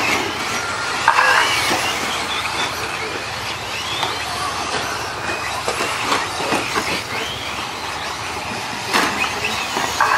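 Electric radio-controlled short course trucks racing, their brushless motors whining with a pitch that rises and falls as the throttle changes. A short clatter of knocks about nine seconds in.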